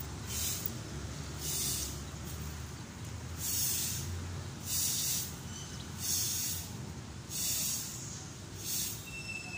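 Breaths close to a phone microphone: a soft hiss about every second and a quarter, over a low rumble of handling or wind noise.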